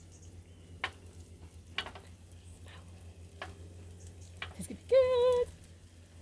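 Vegetable fritters frying in a pan on a portable gas stove: a faint sizzle with a few sharp crackles or clicks over a steady low hum. About five seconds in, a brief wavering pitched tone, the loudest sound, rises over the frying.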